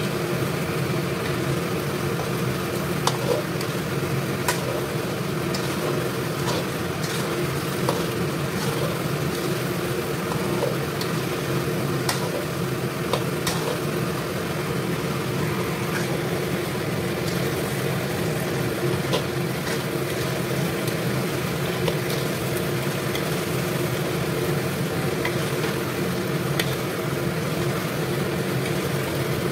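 Sweet potato slices sizzling and bubbling in hot oil in a wok, turned now and then by a metal slotted spoon that clicks against the pan, with a steady low hum underneath.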